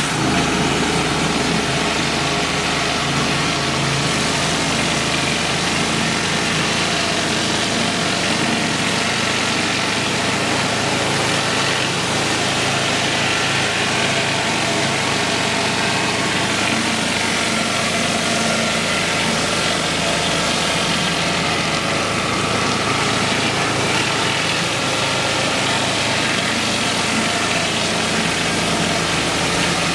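Petrol pressure washer engine running steadily, with the hiss of high-pressure water spraying onto pavers.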